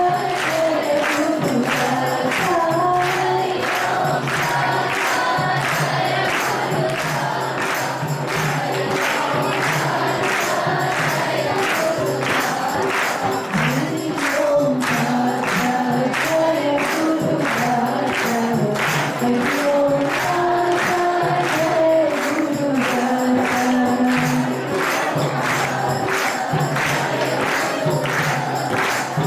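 Group of voices singing a devotional song together over a steady percussion beat.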